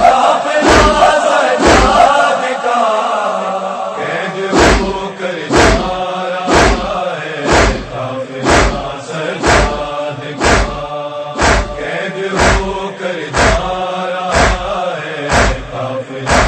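Urdu noha chanted by a chorus of male voices, carried by heavy thumps about once a second, the beat of matam (chest-beating). The thumps pause for a couple of seconds about two seconds in, then resume.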